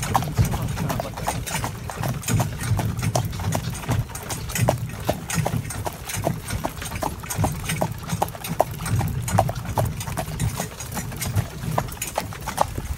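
Hooves of a Gelderlander horse in harness clip-clopping steadily, a few sharp strikes a second, over a constant low rumble.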